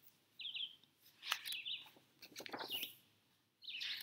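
Wild birds chirping: short calls that rise and fall in pitch, several times over. A few short rustles and clicks of paper come as book pages are turned by hand.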